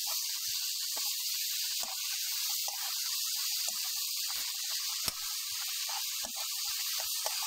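Grated vegetables sizzling in a frying pan as they are stirred: a steady hiss with a few light taps of the spatula against the pan.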